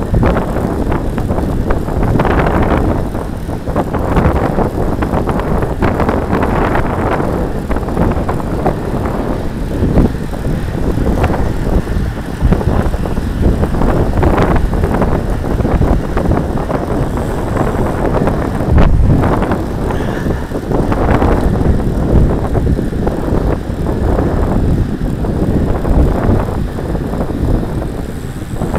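Wind buffeting the microphone of a bicycle-mounted camera while riding at speed, a loud, uneven, gusty rumble, with road noise from the bike underneath.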